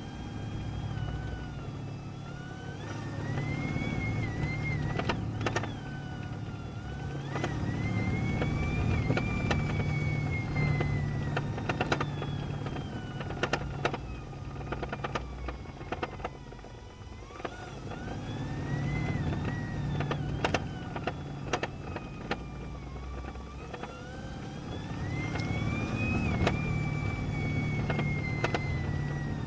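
Cupra Leon plug-in hybrid drivetrain whining over a low rumble. The pitch rises as the car gathers speed and falls as it slows, three times over, with scattered light clicks.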